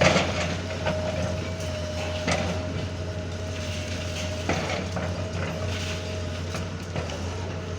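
Backhoe's diesel engine running steadily with a constant hydraulic whine, while debris crashes and crunches as the building is torn down: a loud crash at the start, then several more knocks and crunches.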